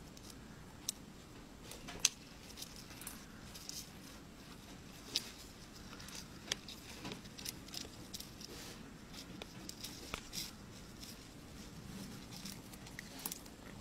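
Light, irregular clicks, taps and scratches, a few a second, from a scorpion and a beetle scrabbling against each other and their hard-floored container, over a faint low hum.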